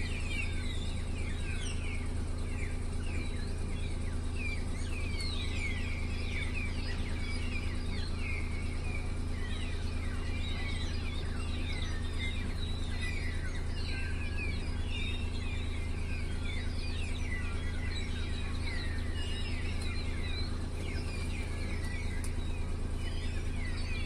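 Small birds chirping continuously, many short, quick downward-sliding chirps overlapping one another, over a steady low hum.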